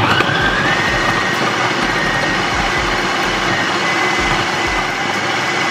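Electric food processor running at speed, its blade mashing boiled cassava into a fine paste. It starts suddenly and its motor whine rises to a steady pitch within the first second.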